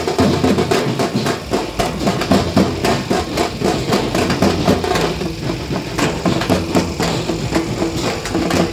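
Loud, fast drum-heavy music, a dense run of rapid drum strokes with no let-up.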